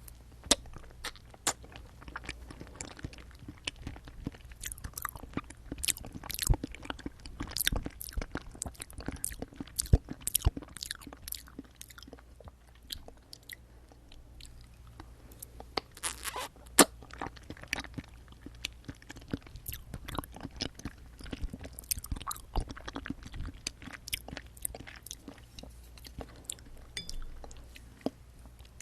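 Close-miked eating of jelly straws: irregular, crisp crunching and chewing clicks as the jelly is bitten and chewed.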